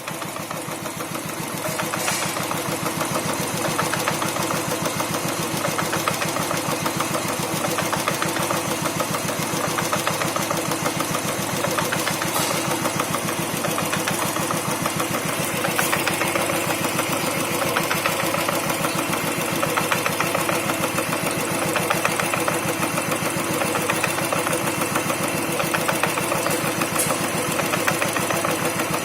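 Royal Enfield Thunderbird 350X's air-cooled single-cylinder engine idling steadily, a little louder after about two seconds. Mixed into the running is the clutch noise the owner says the bike has had since new and that service visits have not cured.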